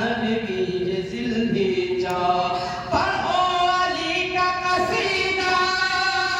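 A man singing a devotional manqabat in Urdu, holding long melodic notes.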